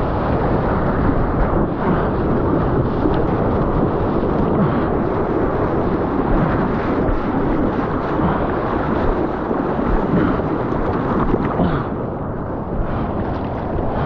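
Whitewater rushing and splashing around a surfboard as it rides in through broken surf, mixed with wind buffeting the action-camera microphone: a loud, steady rumbling wash that eases slightly near the end.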